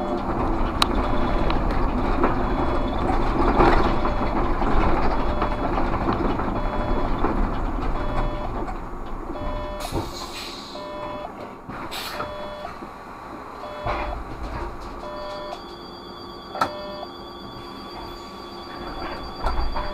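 Škoda 30Tr trolleybus heard from the cab: running noise with the electric drive's whine as it rolls, fading as it slows to a stop about halfway through. A short hiss comes as it stops, then a few clicks, and while it stands a steady high whine from its onboard electrical equipment.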